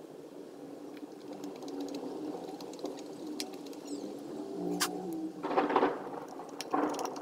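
Small wood screws being driven by hand with a screwdriver through a pickguard into a Stratocaster body: a few light clicks, then two short scraping rustles about five and a half and seven seconds in, over a steady low drone.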